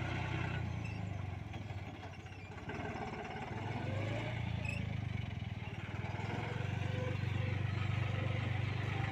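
Heavy-machinery engine running steadily with a low hum, easing off for a moment about two seconds in and building again from about four seconds.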